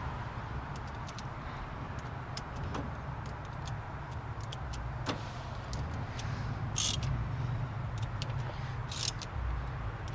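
Socket ratchet clicking irregularly as a battery terminal clamp bolt is tightened, with two short, louder rasps about seven and nine seconds in, over a steady low rumble.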